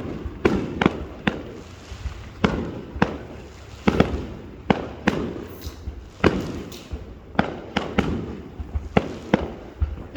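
Aerial fireworks bursting: a run of sharp bangs at uneven intervals, roughly one to two a second, each trailing off in a low rumbling echo.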